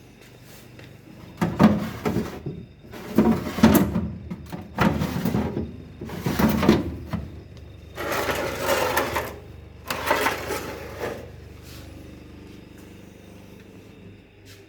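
Orsk refrigerator: six loud, noisy bursts of about a second each, irregularly spaced, over the first eleven seconds, then a low steady hum.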